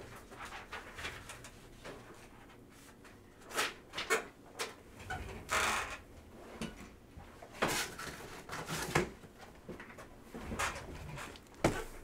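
Scattered soft rustles, scrapes and light knocks of a cardboard trading-card box and its packs being handled on a tabletop, at irregular intervals with short quiet gaps.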